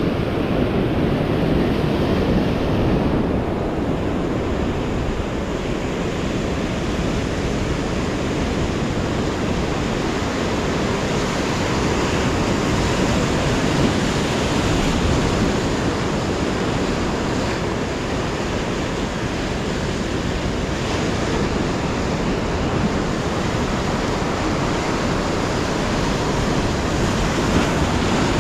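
Steady rush of sea waves washing on the shore, with wind on the microphone.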